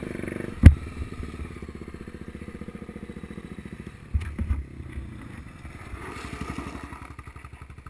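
Dirt bike engine running at low revs with an even putter. Sharp knocks from the bike jolting over bumps come about a second in and again around four seconds.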